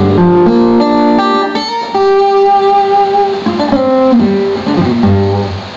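Guitar playing the instrumental interlude of a copla song: a melody of single held notes over a few low bass notes.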